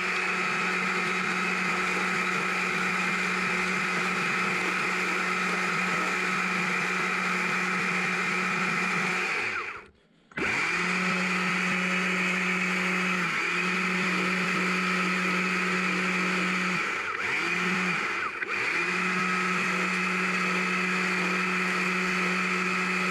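Chainsaw with a narrow carving bar cutting into a small log, its pitch dipping briefly a few times as the chain takes load. About ten seconds in the saw winds down and stops for a moment, then starts cutting again.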